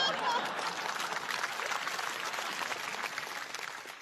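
Audience applause, mixed with some laughter at first, fading out near the end.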